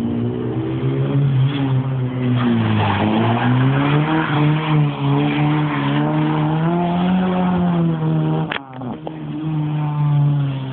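A front-wheel-drive car's engine revving up and down as it is thrown into slides, its pitch rising and falling over a few seconds at a time. About eight and a half seconds in there is a sharp click, and the engine sound drops away briefly before running on.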